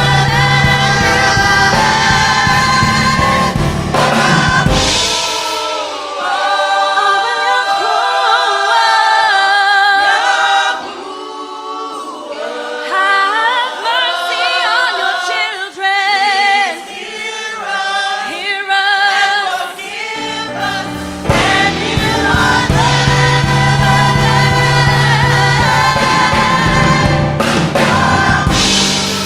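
Choir singing with vibrato in gospel style. The low bass part drops out for much of the middle, leaving the voices more exposed, then comes back in.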